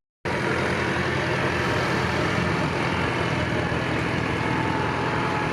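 Heavy truck engine running steadily at a constant low speed, with a faint steady whine coming in about four seconds in.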